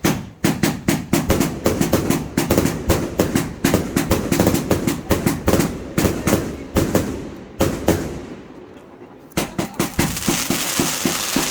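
Fireworks going off in a rapid string of sharp bangs, about four a second. They thin out about eight seconds in, resume briefly, and give way to a steady hiss near the end.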